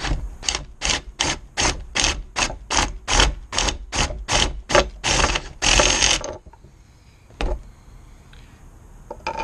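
Cordless drill with a step bit cutting into a cast-aluminium Subaru EJ25D valve cover to enlarge the oil-return hole, chattering in rapid pulses about three or four times a second, then one longer run before it stops about six seconds in. A single sharp click follows about a second later.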